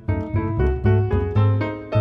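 Piano playing a contemporary piece: chords in the middle register over strong low bass notes, with new notes struck several times a second.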